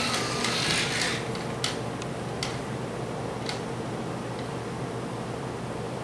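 Gemmy animated ghost girl prop's motor and belt drive running with a steady hum and a few light clicks about a second apart, its snapped rubber belt newly replaced. Music fades out in the first second.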